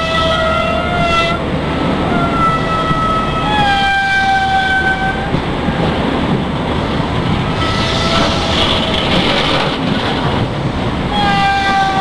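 IC125 High Speed Train pulling out and rumbling slowly past, with a strange pitched tone that comes and goes in stretches of a second or two, stepping up and down in pitch, over the low running noise. A hissy patch of noise rises about eight seconds in.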